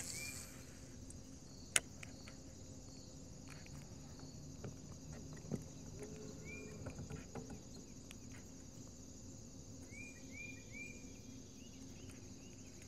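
Quiet outdoor ambience: a steady high-pitched insect drone over a faint low hum, with short rising bird chirps, two at the start, a couple about six seconds in and three in quick succession about ten seconds in. A few light sharp clicks, the loudest about two seconds in.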